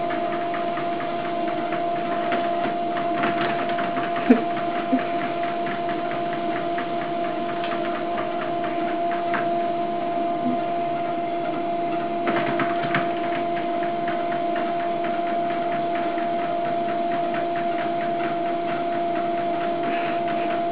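Electric treadmill running: a steady motor hum with a constant whine as the belt turns. A couple of light knocks about four and five seconds in.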